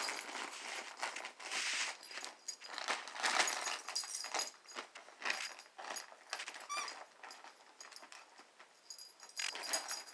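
A shiny Christmas gift bag of dog toys crinkling and rustling in irregular bursts as a Shiba Inu bites, noses and tugs at it to get at the toys inside.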